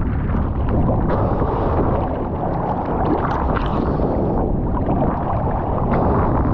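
Ocean water sloshing and splashing against a camera at the sea surface, with heavy wind buffeting the microphone: a steady, dense rush broken by short splashes.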